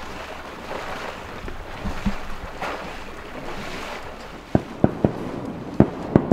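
Water sloshing around a hunter's waders as he wades through shallow marsh water, then, from about four and a half seconds in, a rapid, uneven string of sharp shotgun shots.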